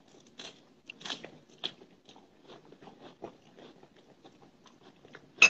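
Close-up crunching and crackling, a string of irregular small clicks, with one sharp, much louder click near the end.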